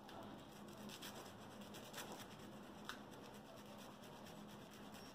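Faint scratching of a cut garlic clove being rubbed over the crust of toasted bread, with a couple of light clicks.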